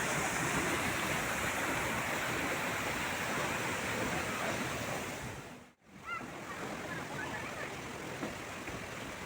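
Steady rushing of stream water. The sound drops out briefly about six seconds in and comes back quieter.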